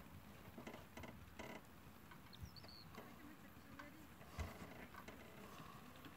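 Faint, muffled hoofbeats of a horse trotting on a sand arena: scattered soft thumps and clicks, the loudest about four and a half seconds in. A bird chirps briefly about two and a half seconds in.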